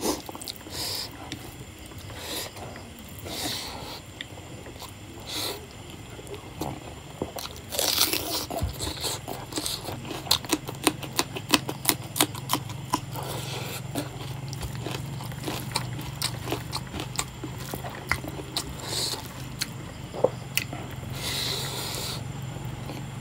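Close-miked chewing and lip-smacking of rice and pork curry eaten by hand: a run of quick wet clicks, busiest in the middle.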